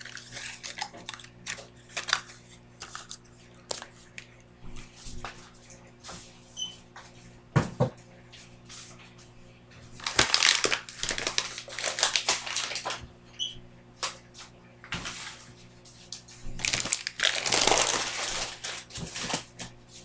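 Microwave oven running with a steady low hum while a mug brownie cooks, under scattered knocks and rustling, clattering clean-up noises that come in two longer bursts, about halfway through and again near the end.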